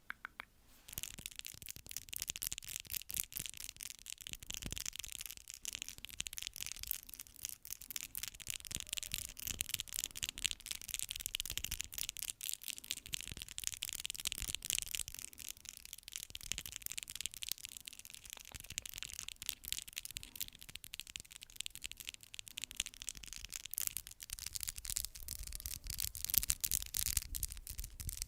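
Fast ASMR tapping: a dense, rapid run of crisp, high clicks and scratchy taps that keeps on without a break.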